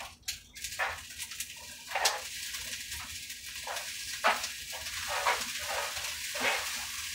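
Rice frying in melted butter in a pan, a steady sizzle, with a utensil stirring and scraping through it in short strokes every half second to a second.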